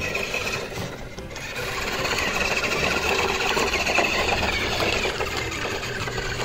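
Ruko 1601AMP RC monster truck's electric motor and gears whining as it drives, louder from about a second and a half in and easing off near the end.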